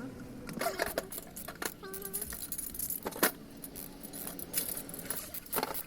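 Scattered light metallic clicks, clinks and rattles of hand tools and bolts being handled during drive shaft work, with sharper knocks about three seconds in and near the end.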